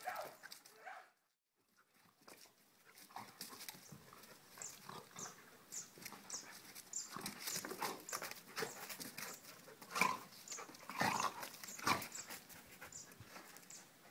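Two dogs, a brindle dog and an Ibizan hound, play-fighting: scuffling, panting and short rough vocal noises come irregularly, loudest about ten to twelve seconds in.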